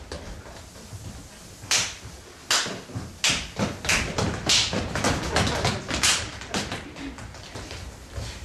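A run of about a dozen irregular sharp thuds and slaps, starting about two seconds in and dying away after about four and a half seconds: performers' bodies and feet hitting a stage floor during physical movement.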